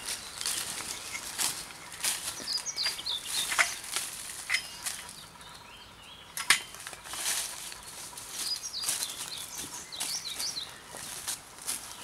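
Footsteps crunching and rustling through dry fallen leaves as a steel fence post is carried and stood in a hole, with scattered knocks, the sharpest about six and a half seconds in.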